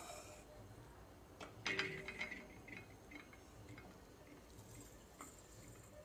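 Faint kitchen handling sounds: a light clatter of a steel mixer-grinder jar and bowls on the counter about two seconds in, a few soft ticks, then a faint rustle as dry rolled oats are tipped from a bowl into the steel jar.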